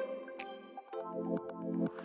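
Background music: soft synthesizer notes with chime-like strikes, building toward an electronic beat.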